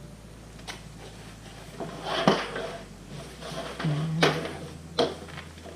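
A nylon backpack being handled and searched: fabric rustling with several sharp knocks, the loudest about two and four seconds in.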